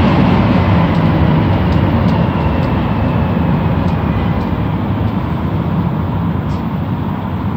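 Montreal Metro AZUR rubber-tyred train heard from inside the car as it pulls into a station: a steady, loud rumble of the running gear, with a faint whine falling in pitch as the train slows and the noise eases off a little.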